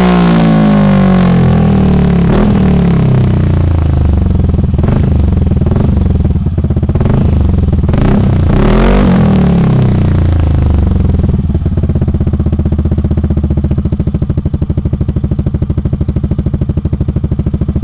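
Yamaha NMAX 155 scooter's single-cylinder four-stroke engine running loud through a Pro Speed aftermarket exhaust with its dB killer removed. It is revved in a series of short throttle blips during the first ten seconds, then settles to a steady idle.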